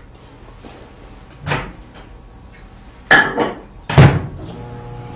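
Microwave oven door clunking open and being slammed shut about three and four seconds in, after a softer thud; the oven then starts running with a steady hum as it heats a pastry.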